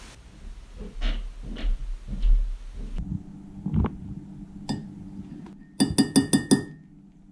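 Metal teaspoon tapping a ceramic mug about six times in quick succession, ringing clinks, as matcha powder is knocked off the spoon into the mug. A few soft knocks and a thud come before.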